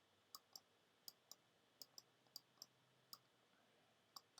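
Faint, irregular clicking, about two or three clicks a second, from the pen input as numbers are handwritten on a computer screen.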